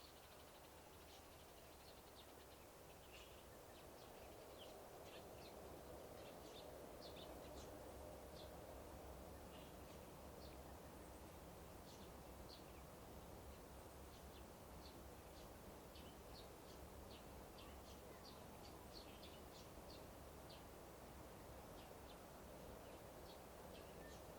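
Faint birdsong: many short, high chirps scattered throughout, over a soft, steady outdoor background noise.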